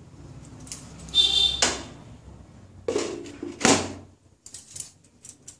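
A glass pan lid with a metal rim handled and set onto a non-stick frying pan: a few clinks and knocks, one with a brief high ring about a second in, the loudest just before four seconds, then a few small ticks.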